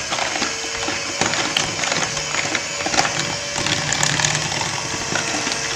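Electric hand mixer running steadily, its twin beaters whirring through a liquid cake batter and rattling against the sides of a plastic bowl, with frequent small clicks over the motor's hum.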